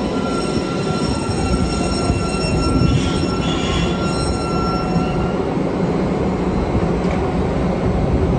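MARTA heavy-rail train rumbling to a stop in an underground station, with a thin steady squeal over the rumble that stops about five seconds in.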